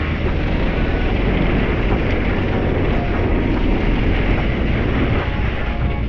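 Wind rushing over the bike-mounted camera's microphone as a mountain bike rolls fast down a hardpack dirt trail, with the tyres running over dry dirt underneath. The noise is loud and steady.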